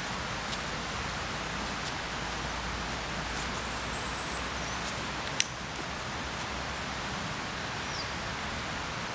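Steady outdoor noise wash, even and unbroken, with a single sharp click about five seconds in and a few faint high chirps.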